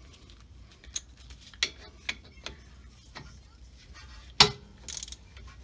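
Hand ratchet wrench clicking in short, irregular strokes as a 14 mm brake caliper bolt is run down and tightened, with one loud sharp metal clack about four and a half seconds in.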